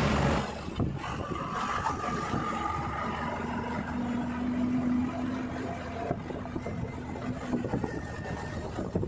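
Truck running as it drives over a rough, broken road, with knocks and rattles throughout. A thin whine sounds in the first few seconds and a lower steady hum in the middle.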